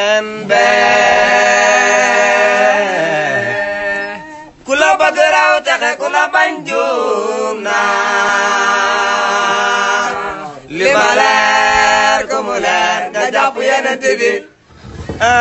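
Young men singing a cappella, long drawn-out notes with a few short breaks for breath.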